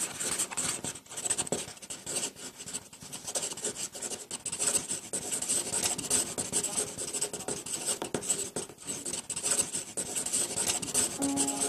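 Pencil scratching on paper in quick, uneven drawing strokes. A piano note begins just before the end.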